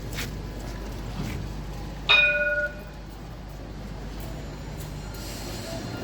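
A single short bell-like ding, loud and ringing for about half a second, about two seconds in, over a steady low hum from the station.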